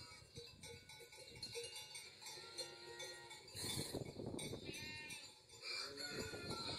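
Dairy cows close by at a fence, calling and shuffling, with scattered pitched calls over the noise of their movement.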